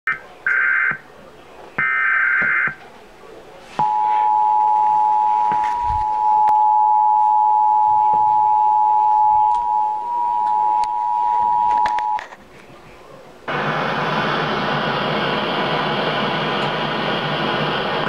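Emergency Alert System tornado warning coming through a TV speaker. It opens with three short bursts of screeching digital header tones, then the steady two-tone attention signal sounds for about eight seconds. After a short pause comes a steady hiss of static.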